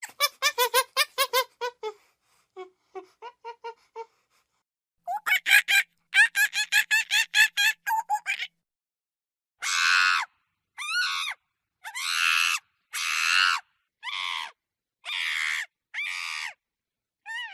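Monkeys calling: fast runs of short, sharp pitched calls, several a second, then a series of longer drawn-out calls of about half a second each, one roughly every second.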